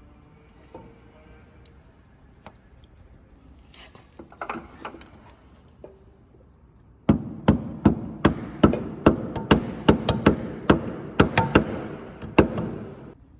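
Hammer blows on a Suzuki Samurai's steering column while its worn friction bushing is being replaced: about fifteen sharp strikes, roughly three a second, starting about halfway in. Before them come a few light clicks and clatter of tools being handled.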